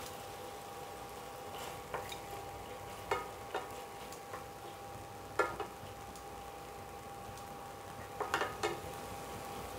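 A spoon stirring a pan of sauce cooking on the stove, with a soft sizzle and a handful of sharp clinks against the pan, three in quick succession near the end. A steady hum runs underneath.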